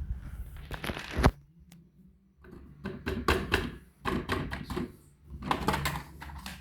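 Plastic toy cars being handled, knocking and clicking against each other and a hard surface in four short clattering bursts, over a low steady hum.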